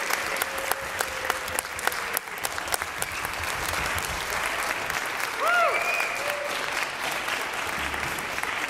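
Concert audience applauding steadily, a dense patter of many hands clapping. About five and a half seconds in, one voice cheers with a short rising-and-falling whoop.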